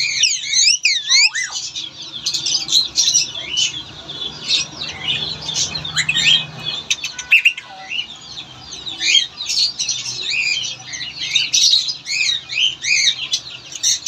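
Caged Alexandrine parakeets squawking: a quick series of up-and-down shrill screeches in the first second and a half, then many short high calls overlapping throughout.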